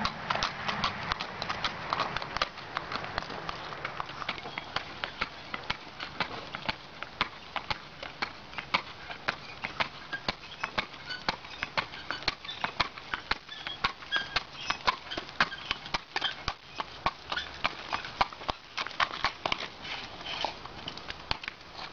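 Haflinger mare's hooves clip-clopping on asphalt as she pulls a two-wheeled cart, a steady run of sharp clops several times a second.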